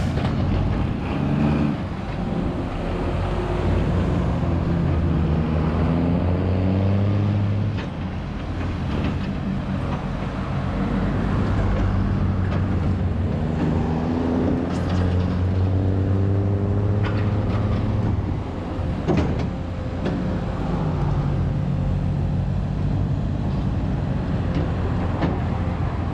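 XCMG XE215CT excavator's six-cylinder Isuzu turbo-diesel running as the machine works, twice rising and growing heavier under hydraulic load. A sharp knock sounds about two-thirds through.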